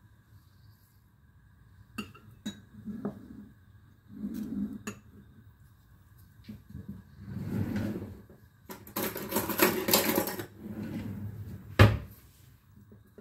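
Kitchen handling noises around ceramic bowls: a few light clicks and dull knocks, then several seconds of rushing noise, and one heavy knock near the end.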